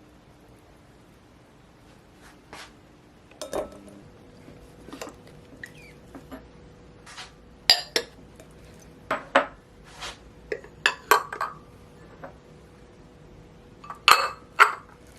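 Dishes and cutlery being handled, irregular sharp clinks and knocks of spoons against bowls or glassware, some louder than others, with the loudest pair near the end.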